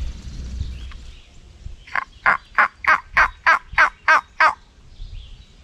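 Wild turkey calling: a run of about nine short, sharp calls, evenly spaced about three a second, starting about two seconds in.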